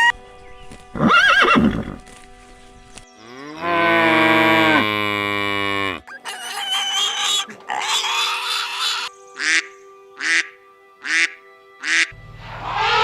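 A string of different animal calls one after another: a short call, a long call falling in pitch, some rougher calls, then four short, evenly spaced calls near the end, over a faint steady music bed.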